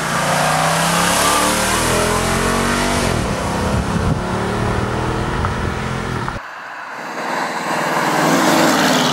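Jeep Grand Cherokee SRT8 V8 accelerating hard past, its engine note rising in steps for about three seconds, then dropping and carrying on as it pulls away. After an abrupt cut about six seconds in, a classic first-generation Ford Mustang's V8 accelerates by, its note climbing near the end.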